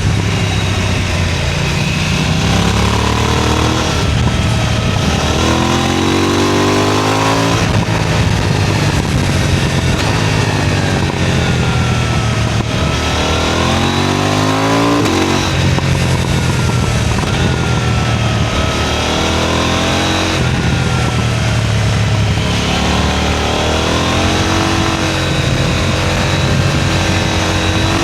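KTM 990 Duke's twin-cylinder engine under hard acceleration, its pitch climbing through each gear and dropping sharply at every upshift, several times over.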